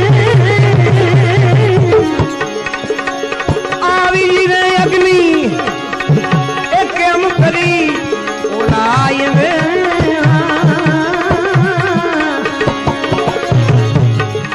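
Instrumental interlude of a bhajan: a hand drum in the tabla family keeps a fast pattern at the start and again near the end, under a wavering, ornamented melody line that runs throughout.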